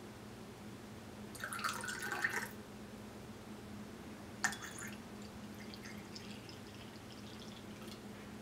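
Liquid splashing into a champagne flute for about a second, then a sharp clink about four and a half seconds in as sparkling water is poured into the glass, fizzing and crackling as the bubbles rise.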